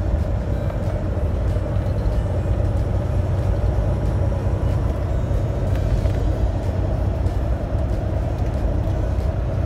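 Steady engine drone and road noise inside a semi-truck's cab while cruising at highway speed, with tyre hiss from the wet pavement.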